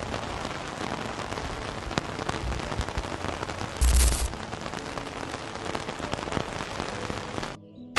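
Rain falling steadily, a haze of noise full of small drop ticks. There is a brief loud rush about four seconds in, and the sound cuts off suddenly just before the end.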